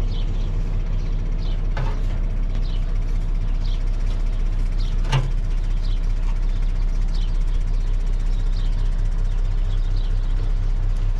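Water tanker truck's engine idling steadily, with one sharp knock about five seconds in.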